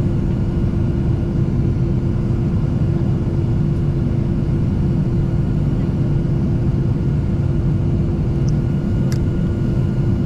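Airliner engines running at low power, heard inside the cabin while the aircraft waits on the ground: a steady low rumble with a constant hum. A single sharp click sounds about nine seconds in.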